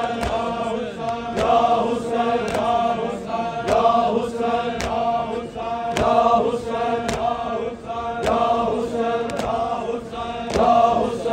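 Crowd of male mourners chanting a repeated lament in unison, with regular chest-beating slaps about twice a second keeping the rhythm.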